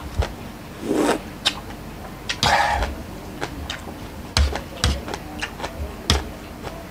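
Close-up eating sounds: wet chewing and crunching of lotus stolons, with a metal spoon clicking and scraping against a stainless steel bowl.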